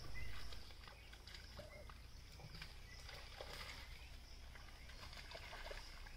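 Faint outdoor ambience over wet mud: a steady low rumble and high hiss, with soft scattered squelches and clicks as bare feet and hands work in the mud.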